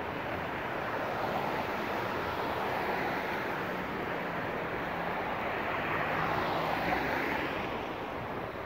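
City street traffic: a steady rush of tyres and engines from passing vehicles, swelling twice as cars go by, with a low engine hum underneath.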